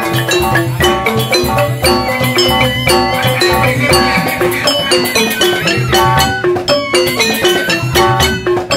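Balinese joged gamelan ensemble playing: quick, repeating interlocking notes on struck tuned bars, with a kendang hand drum keeping the beat.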